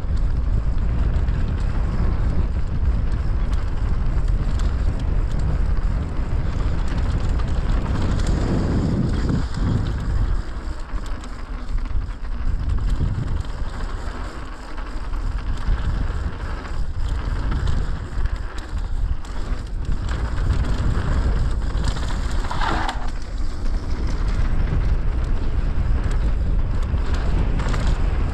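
Mountain bike riding down a dirt trail: wind rushing over a chest-mounted action camera's microphone, mixed with tyre roll and the rattle of the bike over rough ground. It eases off for a few seconds near the middle.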